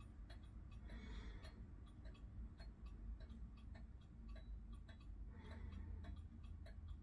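Winterhalder & Hofmeier fusee drop-dial wall clock ticking, faint regular ticks from its pendulum escapement.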